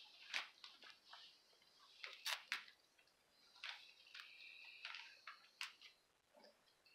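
Faint rustling and crinkling of plastic wrapping and small doll clothes being handled, with several sharp clicks and snaps, the loudest about two and a half seconds in.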